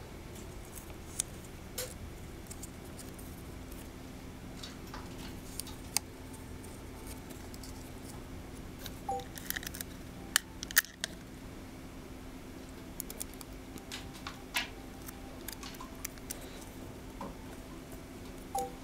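Room tone: a steady low hum with scattered faint clicks and taps, and a brief handling sound near the end as fingers press on paper and copper tape.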